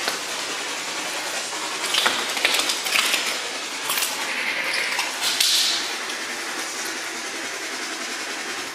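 Steady hiss of static, with a few clicks and knocks between about two and six seconds in.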